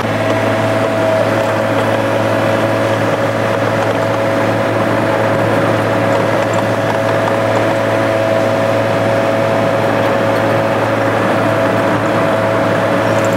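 Mini excavator engine running steadily under work load, with a steady high whine over it, as the bucket is dragged through loose dirt to level a filled trench.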